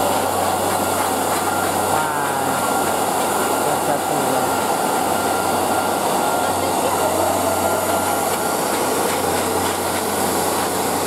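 High-velocity pet grooming dryer blowing steadily through its hose into a thick-coated dog's fur, with the chatter of a crowded hall behind it.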